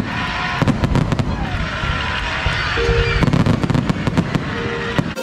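Fireworks going off: a dense, irregular run of crackles and pops.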